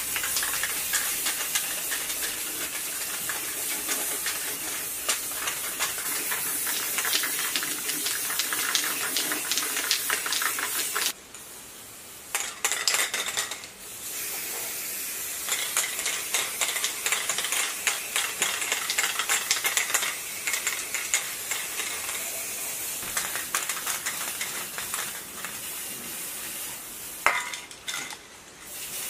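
Aerosol spray-paint can hissing in long sprays, cutting out briefly a few times, with a sharp click just before the last pause.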